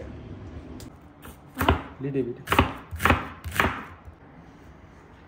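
Knife chopping a red onion on a wooden cutting board: four sharp strokes about half a second apart, starting about a second and a half in.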